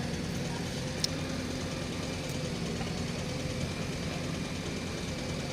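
Diesel engine running steadily at low revs, with a single short click about a second in.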